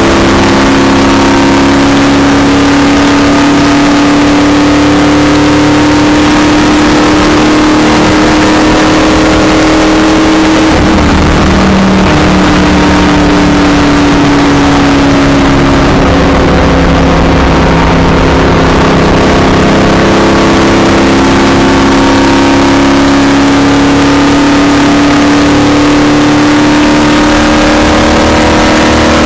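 NASCAR stock car's V8 engine running flat out at high revs, a loud steady drone heard from on board the car at racing speed. Its pitch sags slightly and steps back up a couple of times as the car goes through the banked turns.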